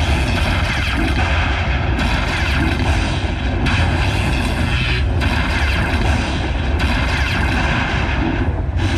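Buffalo Lightning Link slot machine's win-tally sound effect after its free games: a loud, heavy rumbling crash that restarts about every one and a half to two seconds as the win total climbs.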